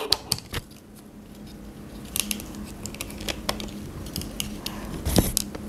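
Plastic clicks and small snaps from the joints and panels of a Transformers Studio Series 72 Starscream figure being twisted and pushed into place during transformation, with a louder knock about five seconds in.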